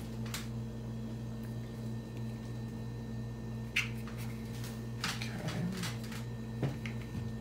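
Soft handling sounds of a plastic wall-plug charger and its cord: a few light clicks and taps, mostly after about four seconds in, over a steady low hum.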